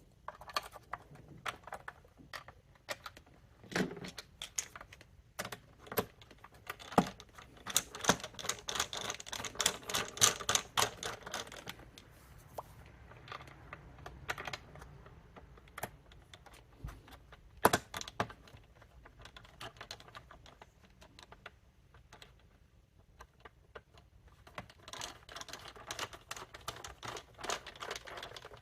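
Small screws being worked with a screwdriver and plastic parts of a Dyson cleaner head being handled: scattered sharp clicks and knocks, with two longer runs of rapid clicking, one about a third of the way in and one near the end.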